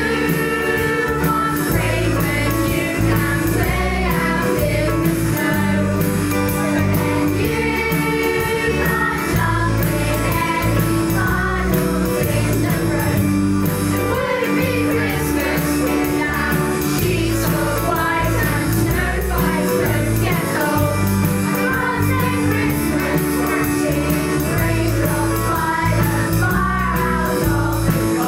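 An original Christmas song: vocals singing over a band accompaniment with a steady beat.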